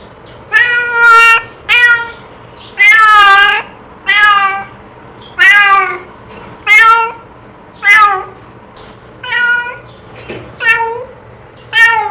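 A domestic cat meowing over and over, about ten meows roughly a second apart. The longest comes about three seconds in and wavers in pitch.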